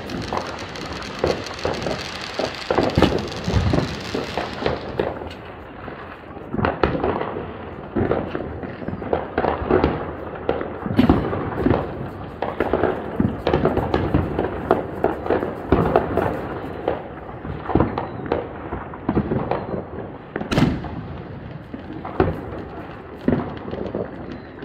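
Fireworks and firecrackers going off all around on New Year's Eve, an irregular, unbroken run of pops and bangs near and far, with a few sharper, closer cracks about eleven and twenty seconds in.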